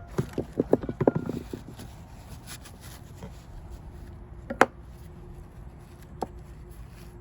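Small metal clicks and knocks from tools and parts being handled during engine work: a quick run of light taps in the first second and a half, then two single sharp clicks later on.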